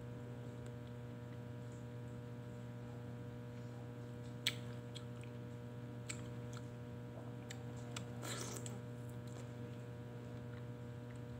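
Steady electrical hum, with soft mouth sounds of a person biting and chewing a slice of soft fruit. A sharp click about four and a half seconds in is the loudest sound, with a smaller one about a second and a half later.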